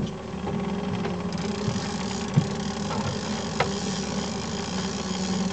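Small outboard motor running steadily at trolling speed, with a few sharp knocks and clicks over it, the loudest about two and a half seconds in.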